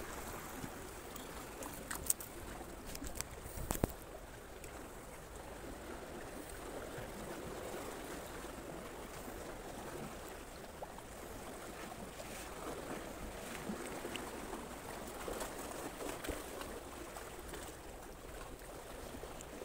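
Steady low wash of water at the fishing spot, with a few sharp clicks about two and four seconds in.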